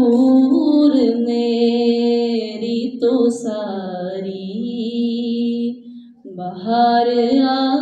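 A woman's voice singing a naat, a devotional Urdu poem in praise of the Prophet, unaccompanied into a microphone. She holds long, wavering notes and breaks briefly between phrases about six seconds in.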